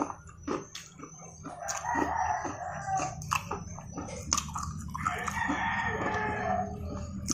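A rooster crowing twice in the background, each crow about a second and a half long, amid sharp crunching clicks of crispy fried chicken being bitten and chewed. A steady low hum runs underneath.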